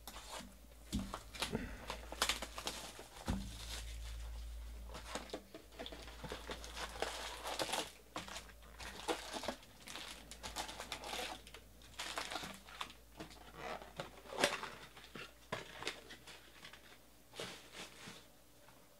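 A cardboard Bowman Draft baseball card box being opened and its foil-wrapped card packs pulled out and stacked: irregular crinkling and rustling of foil wrappers with scattered light taps of cardboard.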